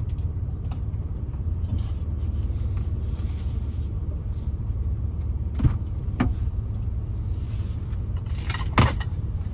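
Car engine running, heard from inside the cabin as a steady low rumble, with a few short sharp clicks or knocks: two a little past the middle and a louder one near the end.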